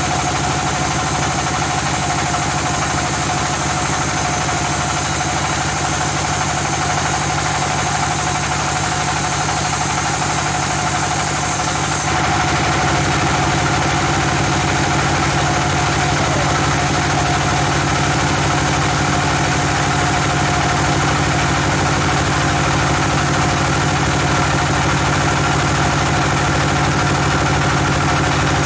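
Band sawmill running steadily with a constant machine hum. About twelve seconds in, a high hiss drops away while the hum carries on.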